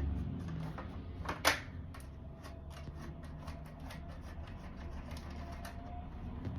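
A screwdriver undoing a small screw in the DVR's metal cover, making a run of small, fairly even ticks, with one sharper click about a second and a half in.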